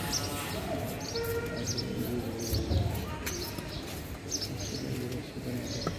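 A large knife scraping the scales off a tilapia on a wooden chopping block, with sharp scraping clicks and one dull thump near the middle. Birds chirp repeatedly in the background.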